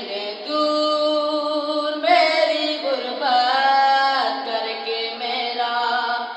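A young man's voice singing Urdu devotional verse without accompaniment into a microphone, holding two long drawn-out notes with pitch glides between them.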